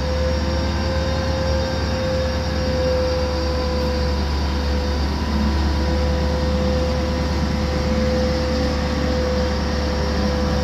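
Diesel-electric locomotive TPI no. 70110 pulling away with a freight train: a deep engine rumble under a steady whine that begins to rise in pitch near the end as it gathers speed.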